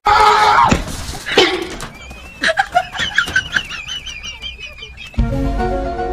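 Excited voices and outdoor commotion, with a high, wavering cry lasting about three seconds in the middle. Background music starts about five seconds in.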